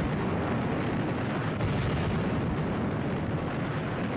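Dense, steady din of gunfire and explosions from a 1950s film's air-raid battle scene.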